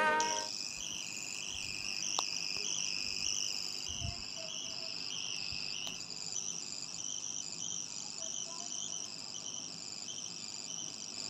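Crickets chirping: a steady high-pitched trill that pulses about twice a second.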